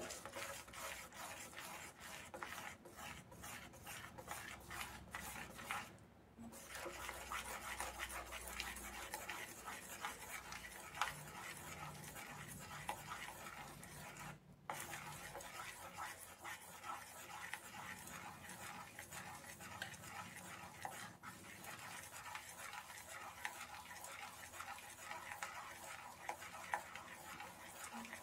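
Metal spoon stirring thick puréed squash and butter in a stainless steel pot: a steady run of small scrapes and clicks against the pot, with a short pause about six seconds in and a very brief one about fourteen seconds in.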